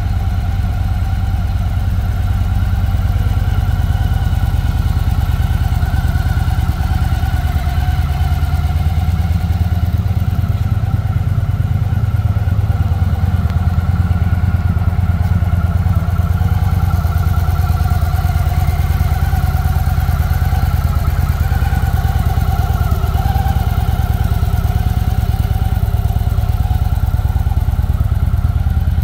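2016 Victory Magnum's 106-cubic-inch V-twin engine idling steadily.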